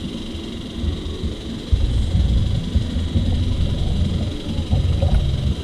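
Wind buffeting an outdoor camera microphone: an uneven low rumble that gets louder about two seconds in, over a faint steady high tone.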